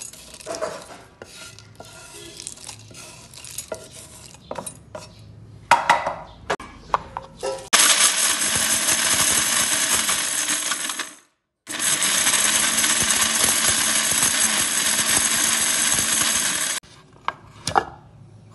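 Electric mixer grinder's stainless-steel jar grinding whole green cardamom and spices into chai masala powder: it runs for about three seconds, stops for a moment, then runs about five seconds more, loud and steady. Before it, the pods and spices scraped off a pan with a wooden spatula clatter into the steel jar, and near the end the jar lid clinks as it is taken off.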